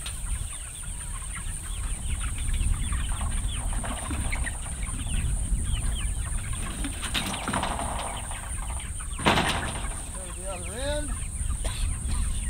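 A flock of chickens clucking and peeping inside a portable floorless shelter as it is moved along the grass, with many short calls overlapping, over a steady low rumble. A sharp clatter comes about nine seconds in.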